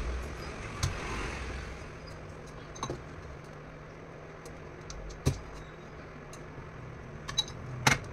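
Sharp clicks and knocks of hand tools on metal charger parts, about five spread out with the loudest pair near the end, as the charger's MOSFET heat sink is taken off. A low steady hum runs underneath.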